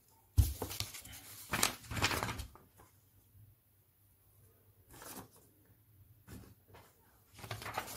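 A thump about half a second in, then intermittent rustling and scraping as sheets of paper are handled on a desk.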